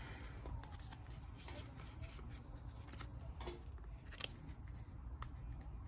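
Fingers picking at and peeling the backing liner off a strip of 3M padded adhesive tape: faint, scattered scratches and crinkles over a low steady rumble.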